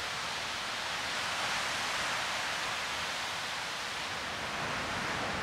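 Steady rushing hiss of waves breaking along a lake shore below a bluff.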